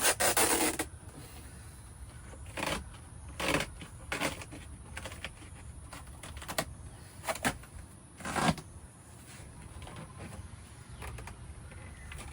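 Irregular knocks, rattles and scrapes of parts and tools being handled while a car's interior is taken apart. The loudest is a scrape of nearly a second at the start, with another sharp one about eight and a half seconds in.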